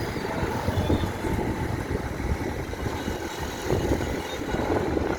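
Container freight train running, a steady low rumble.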